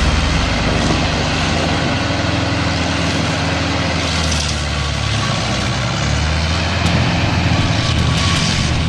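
Heavy machine's engine running steadily under load, a low, continuous engine sound with some clatter on top.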